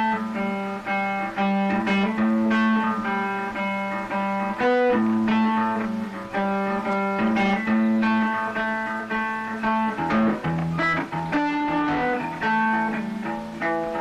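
Instrumental background music: a run of distinct notes over a steady lower line, with no singing.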